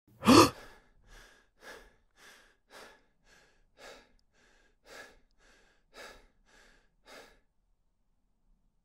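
A young man gives one loud, voiced gasp, then breathes hard in and out about twice a second, the breaths growing fainter until they stop about seven seconds in.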